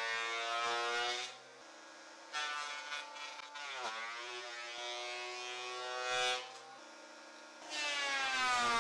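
Makita 2012NB portable thickness planer planing pine boards: a high buzzing whine. Loud stretches alternate with two shorter, quieter stretches, and the pitch dips and climbs back near the middle.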